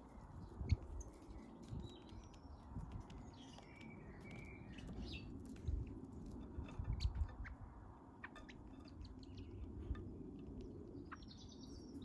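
Garden birds giving scattered short chirps and calls, among sharp clicks and low thumps.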